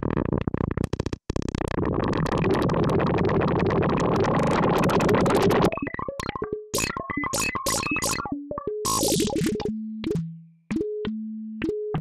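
Meng Qi Wing Pinger synthesizer, its resonant filters being pinged instead of oscillators: first a dense, rapidly clicking, chaotic texture, then about six seconds in it breaks into separate short pitched notes. A few longer held tones come near the end.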